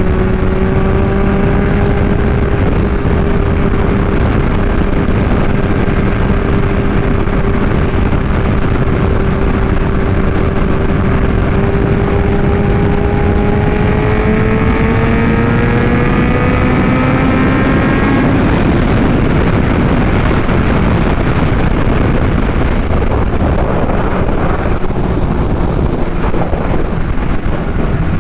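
Kawasaki Ninja H2's supercharged inline-four, through an aftermarket Vandemon exhaust, running at steady highway speed with heavy wind rush on the microphone. The engine note holds steady, then climbs gradually; about two-thirds of the way through it drops under the wind noise, and it comes back near the end.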